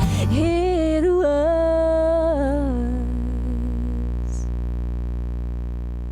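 The end of a country song: a woman's wordless held vocal line steps down and fades out about three seconds in, over a sustained closing chord that keeps ringing and slowly dies away.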